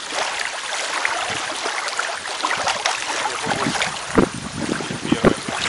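Water splashing and sloshing, with a scatter of small clicks and several sharper splashes or knocks between about three and a half and five seconds in.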